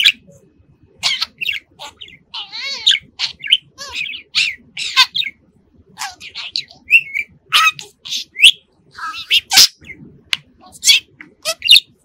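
Male budgerigar chattering: quick irregular runs of short chirps, whistles and warbled notes, with brief pauses between them.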